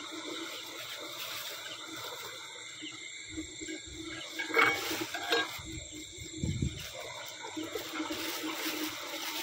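Water running and trickling through a concrete channel at night, under a steady chorus of night creatures. A few brief noises come about halfway through.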